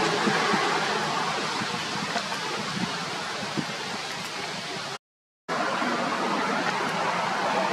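Steady rushing noise with no clear tone, broken by about half a second of dead silence some five seconds in.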